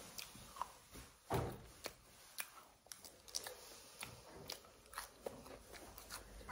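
A person chewing and biting into potato wedges topped with cheese and bacon: faint, irregular clicks and crunches of the mouth.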